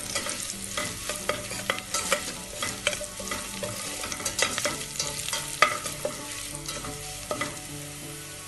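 A spoon stirring and scraping in a stainless steel pot while spice powders fry in hot oil with chopped garlic, ginger, chilli and curry leaves. Frequent clicks of the spoon against the pot sit over a steady sizzle.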